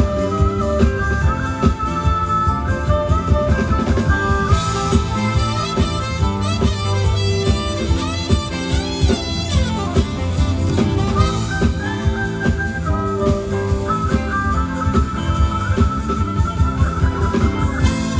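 Instrumental ensemble music: a held, sliding melody line over a steady drum beat, with quick rising and falling runs about halfway through.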